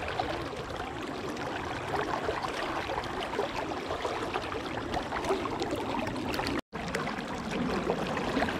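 River current rushing and splashing steadily around a small boat, cutting out for a split second about two-thirds of the way through.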